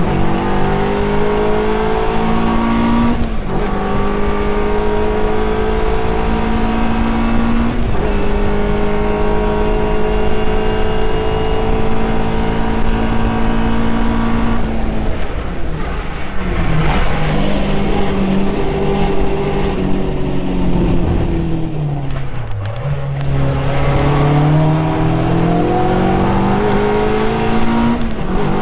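Caterham R300's Ford Duratec four-cylinder engine heard from the cockpit under hard acceleration, the revs climbing and dropping at two quick upshifts in the first eight seconds, then holding high. From about halfway the revs fall through braking and downshifts, bottom out about three quarters of the way through, then climb again, with another upshift at the very end.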